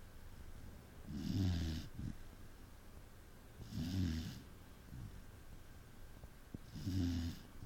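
A dog snoring in its sleep: three snores about three seconds apart, each a low rattling buzz with a breathy hiss.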